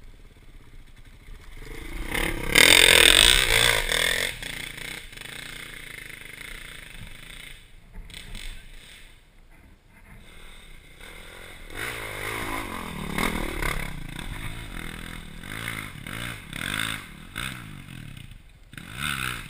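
Off-road enduro motorcycle engine heard from the rider's helmet camera, revving hard about two seconds in, then running lower, then revving up and down again and again over the second half.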